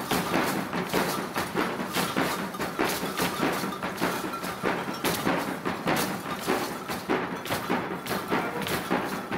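Rhythmic percussion: sharp strikes keeping a steady fast beat of about four a second, with little melody.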